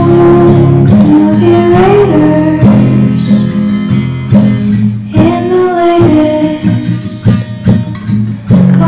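Background song: guitar with a sung melody over it.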